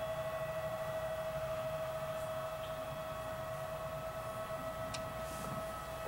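Distant farm machinery at a truck and tank rig giving a steady, siren-like whine held at one pitch, over a low rumble.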